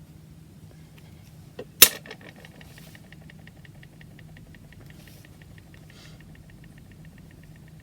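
A single sharp click, the loudest sound, with a faint one just before it, followed by a fast, even ticking over a low steady hum.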